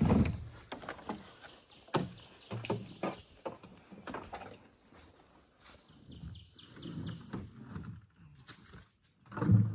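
Knocks, thumps and rustling of camping gear being handled during a portage, loudest right at the start and again near the end, with a songbird trilling in the background.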